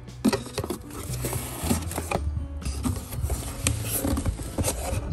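Cardboard shipping box being opened and handled by hand: scraping, rustling and small knocks of the flaps and contents, over background music with a low bass line.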